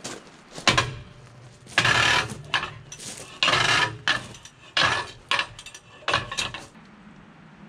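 Irregular metal clanks, rattles and scrapes of steel tools and wheel hardware being handled at a heavy truck's wheel, about seven in all, the longest two a little after a second and a half in and at about three and a half seconds.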